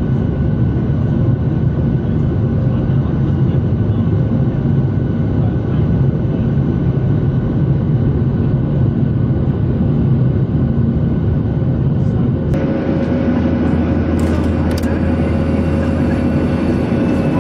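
Steady roar inside a Boeing 737-800's cabin after takeoff: the drone of its CFM56-7B turbofan engines with a few steady tones, mixed with airflow noise. About three quarters of the way through, the roar changes abruptly to a smoother, more even sound, and a couple of sharp clicks follow soon after.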